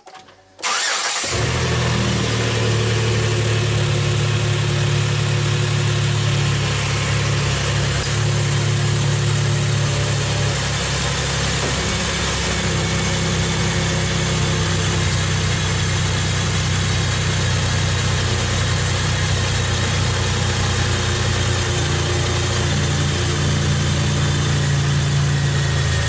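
A 2006 Chevy Impala's engine starts less than a second in and then runs steadily at idle, with the air-conditioning compressor engaged on its newly fitted clutch.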